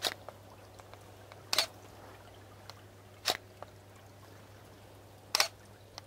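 Slow footsteps crunching on forest litter, one step every second and a half to two seconds, over a faint steady low hum.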